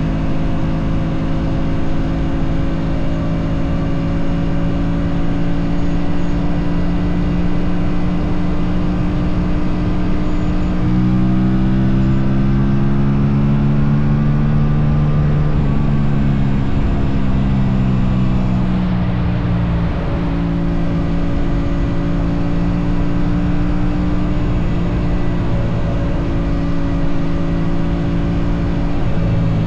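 Aprilia RS 457 motorcycle's parallel-twin engine running steadily. About a third of the way in, the engine note rises for a few seconds, then eases back down to a steady note.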